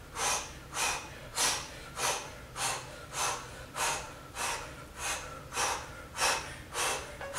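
A woman breathing hard and fast during floor tricep dips. The sharp breaths are audible through the nose and mouth, about three every two seconds, in a steady rhythm.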